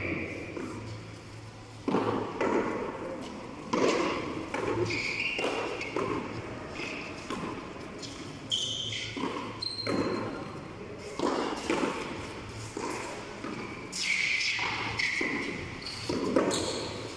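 A frontón rally with a tennis ball: a string of sharp, irregular smacks, about one a second, as players strike the ball by hand and it hits the wall and bounces on the concrete floor inside the enclosed court. Players' voices call out between the hits.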